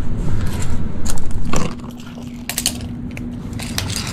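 Clicks, knocks and clatter of tools and parts being handled around a cardboard box, busiest in the first second and a half, over a steady low hum.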